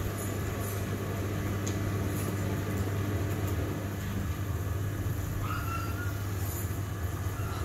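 James LR 710 front-loading washing machine in its autobalance stage before the spin: a steady low motor hum as the drum turns to even out the load. A steadier tone within the hum drops out about four seconds in, and a short high chirp comes about five and a half seconds in.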